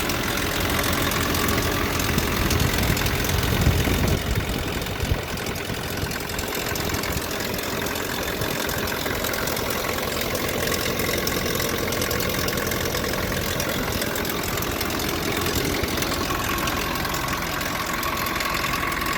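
Nissan D21 pickup engine idling roughly on a blown head gasket, with two of its four cylinders dead, while the timing chain rattles. It runs a little heavier for the first few seconds, then settles into an even idle.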